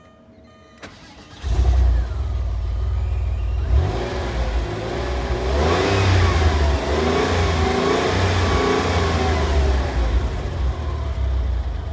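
1997 Porsche 911 (993) Turbo S's twin-turbocharged air-cooled flat-six starting up about a second and a half in, then revved in several rising and falling blips before easing back to a steady idle near the end.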